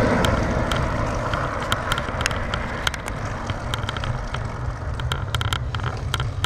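Road bike riding on asphalt with wind buffeting the handlebar-mounted camera: a steady low rumble. A passing car fades out in the first second. Irregular sharp ticks and clicks from the bike run through it.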